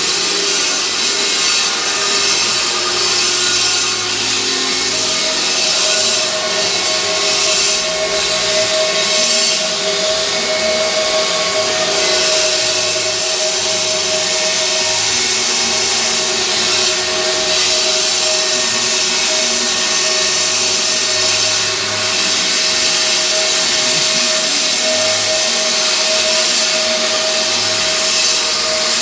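CNC stone router running: the spindle holds a steady whine while the bit grinds and carves into stone, a continuous harsh cutting noise with slight swells as the tool moves.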